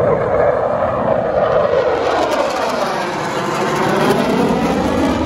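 Loud jet engine noise from two military jets flying past overhead in formation, with a sweeping change in tone as they go by.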